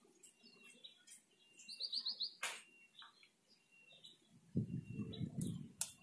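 Small birds chirping, with short high calls and a quick run of notes about two seconds in. A sharp click comes twice, and a low rustling noise starts about four and a half seconds in.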